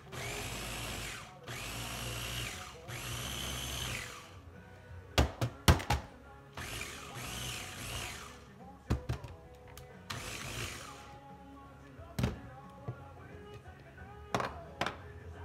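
Small bullet-style blender pulsed about five times, each pulse a whir of one to two seconds that climbs in pitch and then dies away, blending grilled jalapeños and garlic. Between the pulses come several sharp knocks, the loudest cluster about five seconds in.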